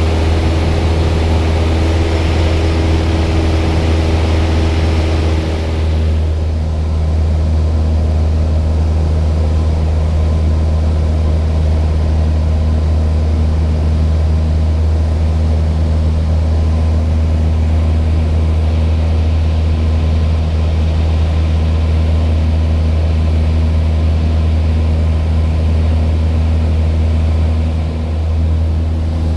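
Propeller aircraft engine running with a steady, loud, low drone. About six seconds in, the higher hiss and mid-pitched tones drop away and the low drone carries on.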